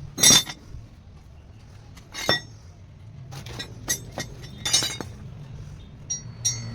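Hard metal pieces clinking and tapping against each other: about six sharp clinks spaced unevenly, the loudest right at the start, with a short metallic ring near the end, over a low steady hum.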